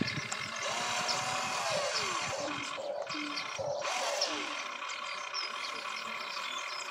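Electric motors and gearing of a radio-controlled excavator whining as it swings its boom and lowers the bucket to dig, the pitch rising and falling with each movement.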